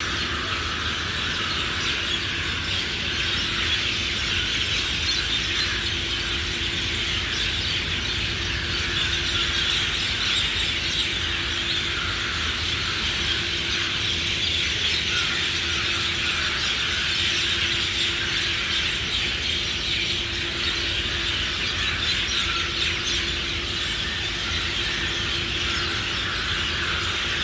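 A dense chorus of many birds chirping together without a break, with a faint steady hum underneath.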